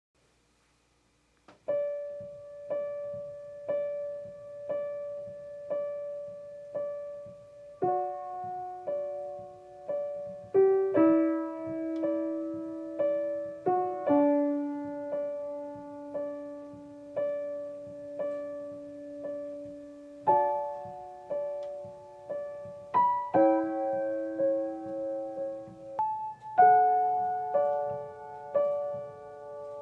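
Soft solo piano music. After about a second and a half of silence, a note is struck roughly once a second over slowly changing chords.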